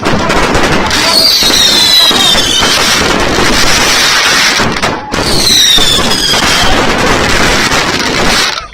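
Fireworks going off in a dense, continuous barrage of crackling and bangs, with two high whistles that fall in pitch: one about a second in and one around five seconds in.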